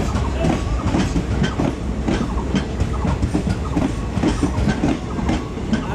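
Blue ICF passenger coaches rolling past close by: the wheels clatter over the rail joints in a fast run of knocks over a steady rumble.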